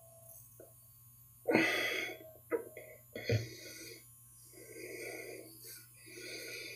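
Rockwell 6C double-edge safety razor scraping through lathered stubble on the cheek and jaw in short rasping strokes, about five in all, during an across-the-grain pass.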